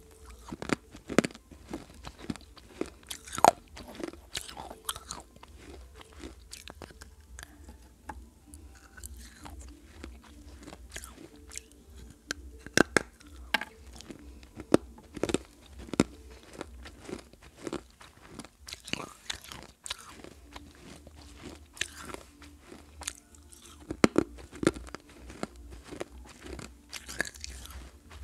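Close-miked crunching and chewing of shards of a fired clay pot, with sharp irregular cracks as the pieces break between the teeth.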